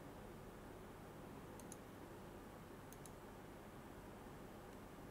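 Near silence with a faint low hum, broken twice by a faint double click: keys being pressed on the laser machine's CNC control panel keypad.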